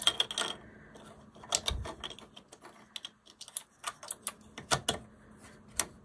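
Irregular sharp plastic clicks and snaps as the 3D-printed top plate of a clicky fidget is pressed down and snapped onto its base, with a dull knock about two seconds in.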